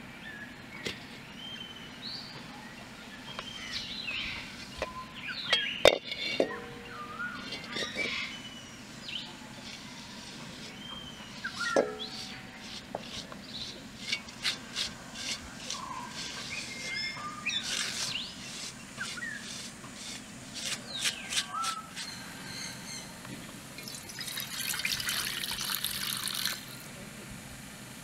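A blackened metal pan being scrubbed by hand over a wood fire: irregular scraping and clicking strokes, then a few seconds of steady hissing near the end. Birds chirp now and then throughout.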